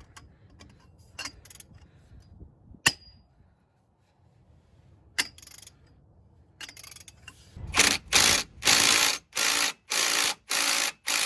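Ratchet wrench clicking in a run of about seven quick strokes, spinning out a strut bolt that has just been broken loose. A few sharp metal clicks come first.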